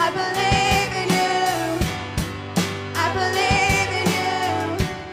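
Live worship band music: a woman singing a slow melody with vibrato over keyboard, a sustained bass line and drum hits.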